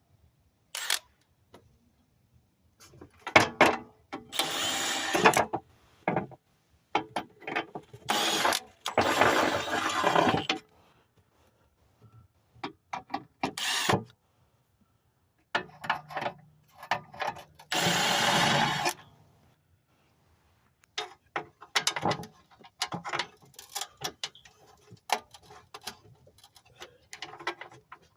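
Ratchet wrench clicking in short quick runs as bolts are snugged up, with scattered metallic clicks and taps between.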